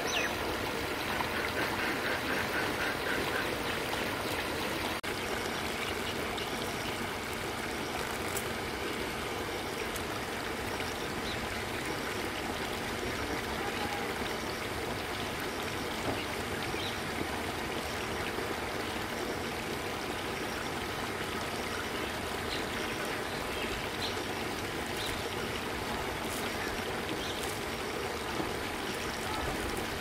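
Steady, even rushing noise, like flowing water, with no distinct events. A few duck quacks in the first few seconds.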